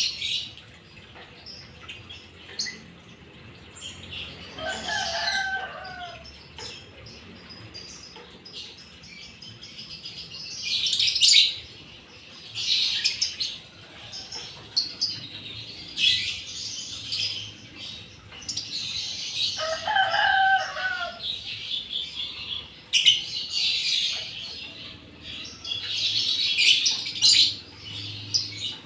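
Small birds chirping, with short bursts of wing fluttering throughout. A rooster crows twice in the background, about five seconds in and again about twenty seconds in.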